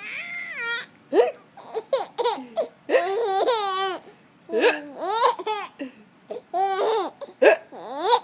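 A baby and her mother hiccuping amid laughter and high-pitched baby babbling. Short, sharp hiccups break in between the longer stretches of laughing voice.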